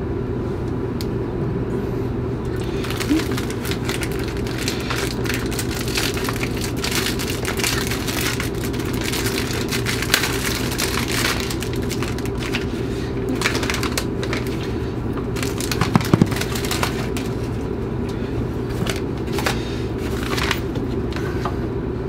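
Plastic wrapping crinkling and crackling irregularly as a bag of microwave popcorn is unwrapped and handled, over a steady low hum.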